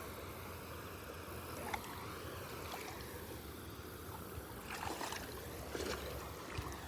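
Faint water lapping at a shoreline, a steady low wash, with a few light clicks and knocks about two, five and six seconds in.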